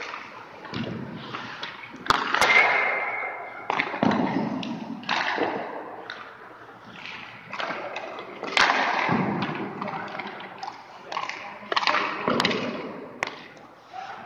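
Hockey skates scraping and carving on rink ice, with repeated sharp knocks of pucks and sticks.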